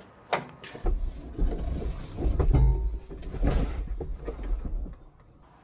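TYM T574 tractor's cab door clicking open, followed by clunks, creaks and rustling as someone climbs up the step into the cab and settles into the seat.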